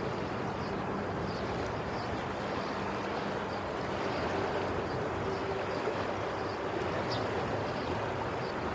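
Steady rush of waves and water, with a faint low hum running under it and faint high chirps about twice a second.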